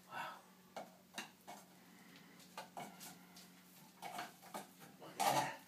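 A metal tool prying and scraping at the rusted-shut lid of an old paint can: a scatter of short clicks and scrapes, the loudest near the end. A faint steady hum runs underneath.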